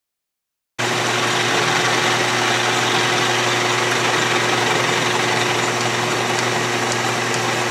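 Atlas/Craftsman 12-inch lathe running with a half-inch end mill taking a light milling cut across the end of aluminum stock: a steady machine hum with cutting noise. It starts abruptly out of silence about a second in.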